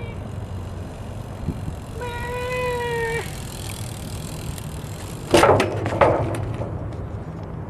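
BMX bike and rider crashing into a bridge: two loud clattering impacts about a second apart, over a steady rumble of riding noise, with a held pitched tone a few seconds before.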